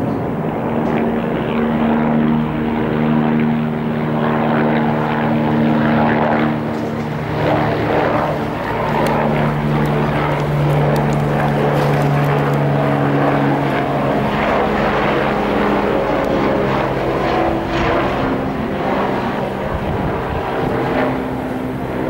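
Airplane flying overhead: a loud, continuous engine drone made of several steady tones that drift slowly in pitch.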